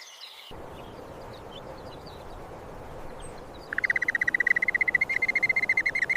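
Steady outdoor background hiss. About three and a half seconds in, a bird starts a fast, even trill of high chirps that runs on past the end.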